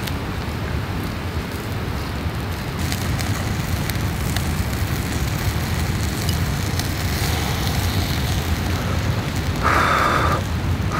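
Meat and leeks sizzling and crackling over charcoal on a shichirin grill, with scattered small crackles over a steady low rumble. About ten seconds in, a brief louder, higher-pitched sound cuts in for under a second.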